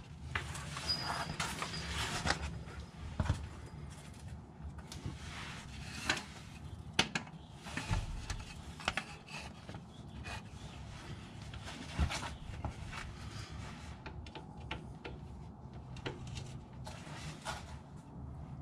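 Hand tools scraping and clicking against a VW Beetle transaxle as a 17 mm hex key is worked into its drain plug: an irregular rubbing scrape with scattered light knocks.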